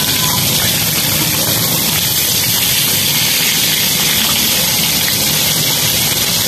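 Chicken pieces deep-frying in a pan of hot oil: a loud, steady sizzle of bubbling oil, while tongs turn and lift the pieces.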